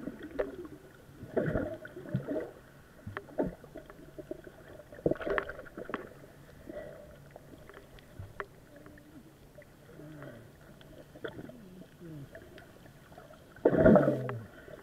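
Muffled underwater sound picked up through a waterproof camera housing: irregular sloshing, bubbling and knocks as water moves against the camera, with a louder burst of sloshing near the end.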